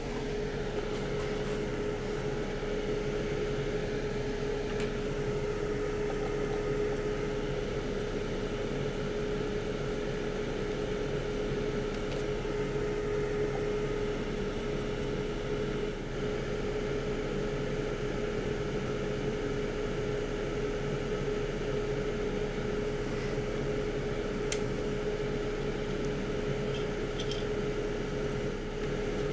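Steady fan-like hum with a constant mid-pitched tone. Faint clicks of small plastic parts being handled come near the end.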